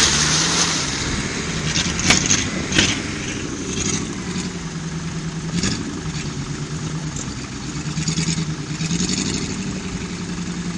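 Off-road 4x4 engine running at low revs, its pitch rising and falling gently a few times, with a few sharp knocks about two to three seconds in.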